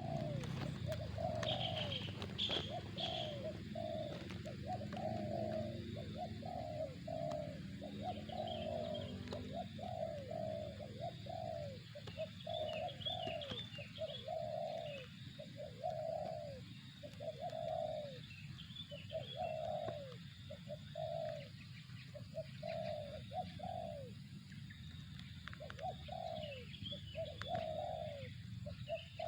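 Spotted dove (tekukur) cooing over and over in short runs of several low coos, with a brief gap between runs. Faint high chirps of small birds come through behind it, and a low rumble sits under the first several seconds.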